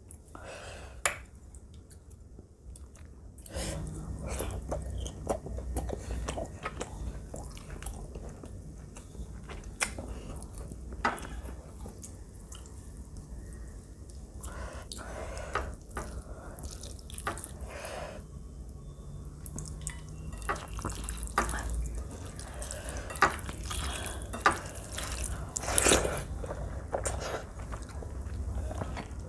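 Close-miked eating sounds: chewing and wet squishing as rice is mixed with chicken curry by hand and eaten, with scattered sharp clicks and knocks.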